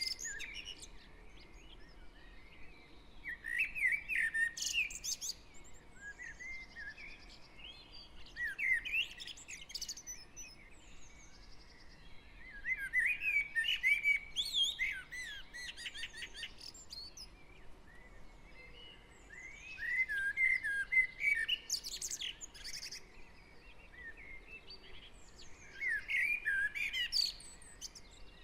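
Garden birds in a dawn chorus. A songbird sings a loud warbling phrase every five or six seconds, each lasting a couple of seconds, with fainter chirps from other birds between them. A faint distant traffic hum runs underneath.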